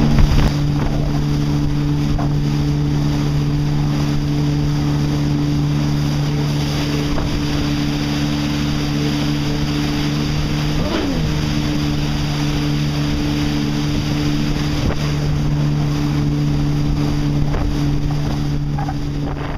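Personal watercraft engine running steadily at cruising speed while towing a second ski, over wind on the microphone and rushing water. About eleven seconds in, the engine note dips briefly and comes back up.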